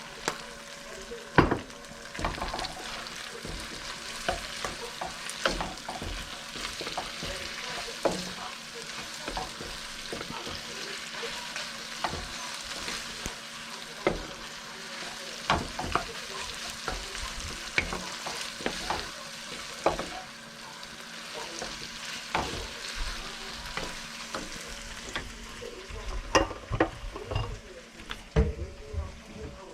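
Pork and egg fried rice sizzling as it is stir-fried in a hot pan, with a utensil repeatedly knocking and scraping against the pan at irregular intervals, more often near the end.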